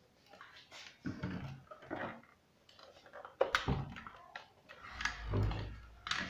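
Plastic knocks and bumps from handling a computer monitor with its stand attached as it is lifted and turned upright, with a sharp knock about three and a half seconds in and a low thud around five seconds.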